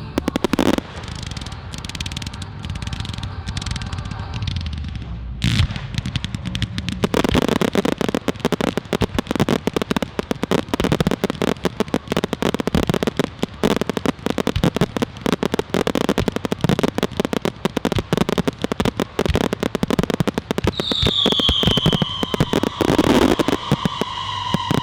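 Fireworks display: a few loud bangs, then from about seven seconds in a dense, continuous crackling of many rapid pops. Near the end a high whistling tone starts and glides slightly down over the crackle.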